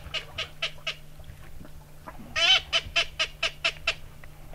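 Double-reed blue-winged teal call (Haydel's BB-10 Big Blue) blown in quick runs of short notes, about four a second. The first run fades out within the first second; a second run starts loud about two and a half seconds in and trails off.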